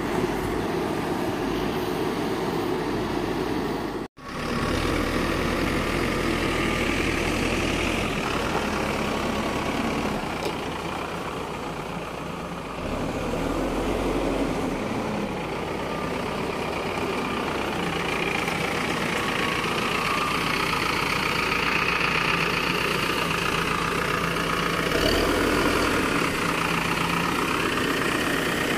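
Diesel engine of an Escorts Digmax II backhoe loader running steadily, with a brief break in the sound about four seconds in.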